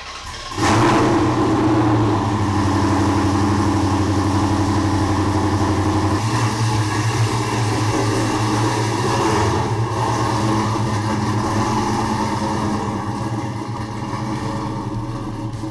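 Dodge Challenger engine starting abruptly about half a second in, then running steadily as the car is backed out. It grows somewhat quieter near the end as the car moves away.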